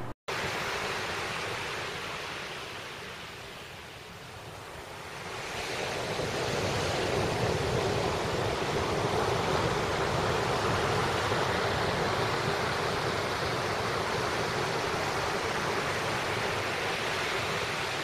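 Ocean surf breaking and washing up a sandy beach: a steady rush of waves that ebbs about four seconds in and swells again a couple of seconds later.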